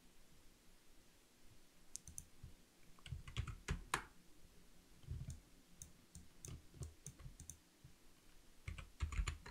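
Faint typing on a computer keyboard: keys tapped in short clusters of clicks with pauses between, as numbers are entered.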